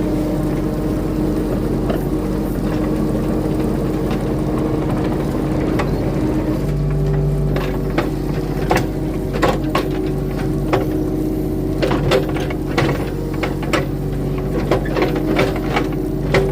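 Compact earthmoving machine's diesel engine running steadily, with a series of sharp metal clanks and knocks from about six seconds in.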